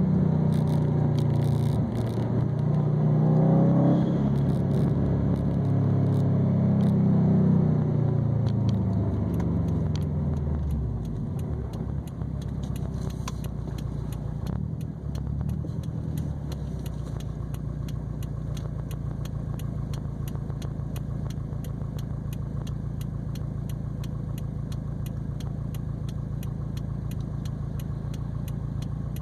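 2020 Subaru WRX STI's turbocharged flat-four through an ETS quiet non-resonated catback exhaust and Grimmspeed catted downpipe: the revs climb and fall twice under acceleration, drop away about ten seconds in, then settle to a steady low rumble with a fast, light ticking.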